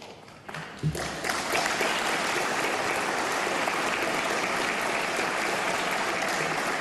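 A roomful of members of parliament applauding. The clapping starts about a second in, holds steady, and begins to ease off near the end.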